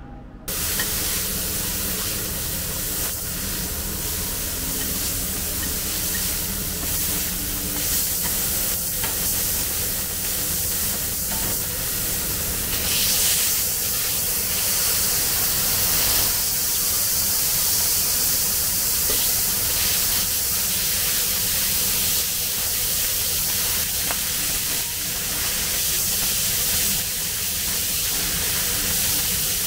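Burger patties sizzling on a hot griddle: a steady hiss with a low hum underneath.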